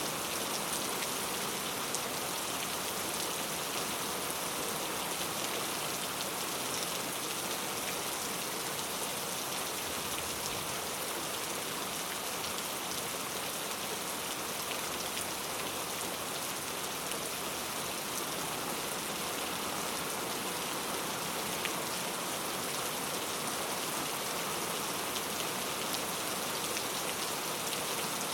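Heavy rain falling steadily, a dense even hiss with scattered faint drop ticks.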